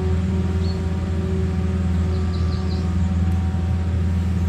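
Steady low mechanical drone, like a machine or engine running, loud and unchanging, with a few faint high chirps about a second in and again around two and a half seconds.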